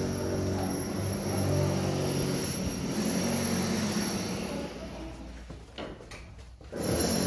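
Steady low mechanical hum, engine- or motor-like, holding several low tones. It fades and dips for about a second and a half near the end, then comes back.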